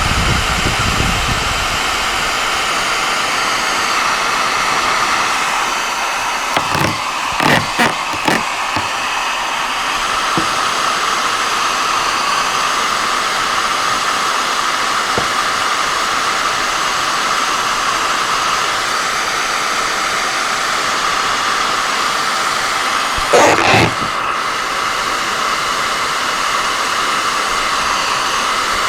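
Steady rushing air noise, like a blower running, with a few short sharp knocks about seven to eight seconds in and a louder brief one near the end.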